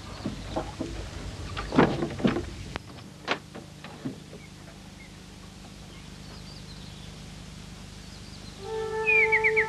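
A wooden door knocked and its metal slide bolt worked: a string of sharp knocks and clatters, loudest about two seconds in, over a faint steady hum. Near the end, music with a rapid high trill comes in.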